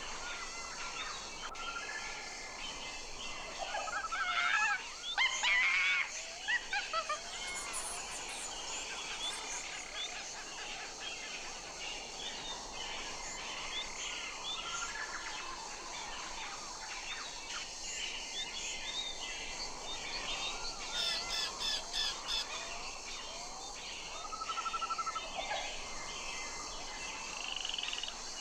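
Natural outdoor ambience of several birds singing: short chirps and repeated trills come and go throughout over a steady background hiss.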